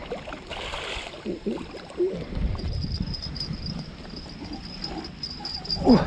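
Insects, crickets by the sound of it, chirping in a steady high pulsing trill from about two and a half seconds in, over a low rumble. A man's voice makes a few short murmured sounds, the loudest near the end, and there is a brief rush of noise about half a second in.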